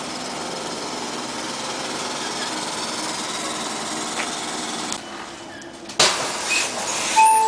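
LAZ-E301A1 articulated trolleybus running close by, a steady mechanical hum and rattle with a faint whine over it. About six seconds in, the sound cuts to the louder noise inside a moving trolleybus, and a chime sounds near the end.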